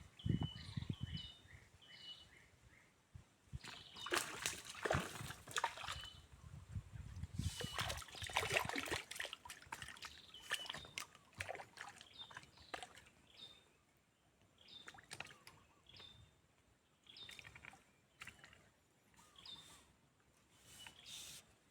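Water splashing and sloshing in two main bursts, about four and eight seconds in, with smaller splashes later. A bird repeats short, high, falling chirps throughout.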